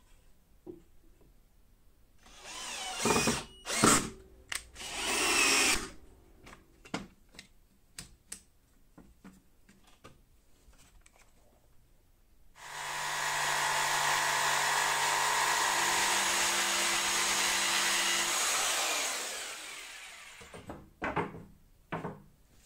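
Jigsaw motor running steadily for about six seconds, then spinning down with a falling pitch. Before it come a few short loud noises and scattered clicks and knocks, and a few more knocks near the end.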